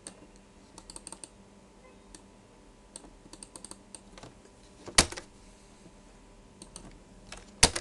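Computer keyboard typing: scattered keystrokes in short runs, with two louder sharp clicks, one about five seconds in and one near the end.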